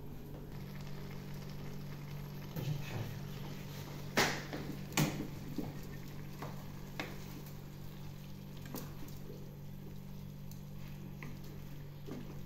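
Chopped tomato, onion and green pepper being stirred with a spoon in a stainless steel pan, the spoon knocking against the pan several times, the loudest two in quick succession about four and five seconds in. A steady low hum runs underneath.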